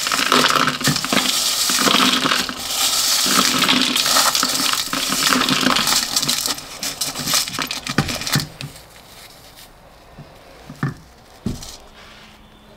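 Gritty scraping and clinking of metal pieces, dense with small clicks, for about eight seconds; it then stops and a few separate knocks follow near the end.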